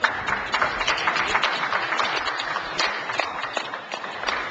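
Spectators applauding: many hands clapping in a dense, steady patter that starts abruptly.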